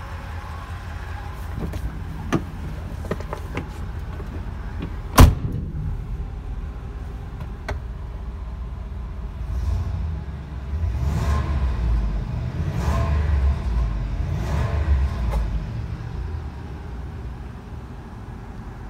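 Ford E-350 van engine idling, heard from inside the cab, a steady low rumble. A few small clicks, then a single loud thud about five seconds in. From about ten seconds the low rumble swells in uneven surges for several seconds before settling.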